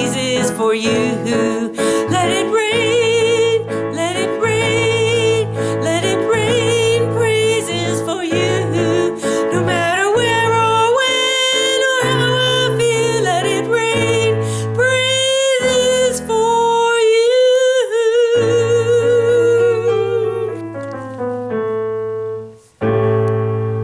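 Music: a voice singing long, wavering notes with no words the recogniser could catch, over keyboard accompaniment. Near the end the music drops out for a moment, and then a held chord rings out.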